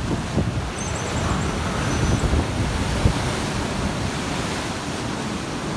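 Sea waves splashing and surging on a rocky shore, a dense steady wash of water noise with wind rumbling on the microphone.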